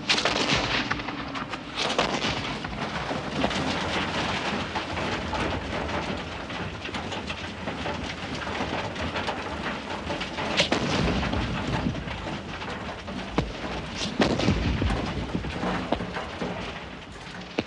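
Loose earth and stones tumbling and sliding down a gravel slope, a steady rushing rattle with louder surges about 2, 11 and 14 seconds in.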